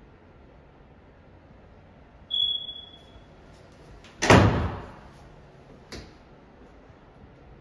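A closet door is pulled open with a short scraping slide lasting under a second, then a sharp click as it comes to rest. About two seconds earlier there is a brief high-pitched tone.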